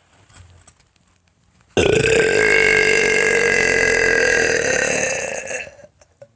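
One long, loud, deliberate burp. It starts suddenly about two seconds in, holds a steady pitch for about four seconds, and tapers off near the end.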